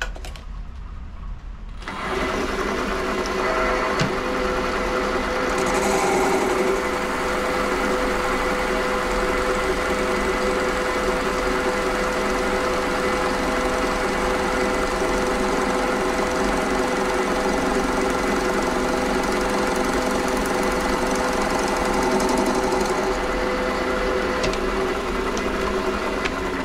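Warco WM210V variable-speed bench lathe starting up about two seconds in, its motor and headstock gearing running steadily with a steady whine, then being switched off near the end.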